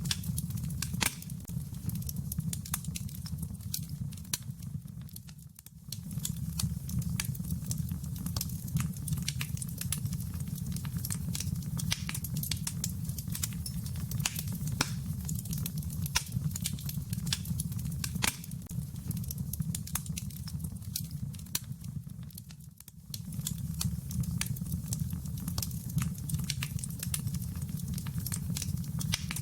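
Fireplace fire crackling: irregular pops and snaps over a steady low rumble, which fades out briefly twice.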